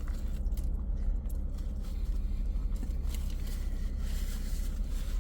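Steady low rumble of a motor vehicle, running unchanged throughout.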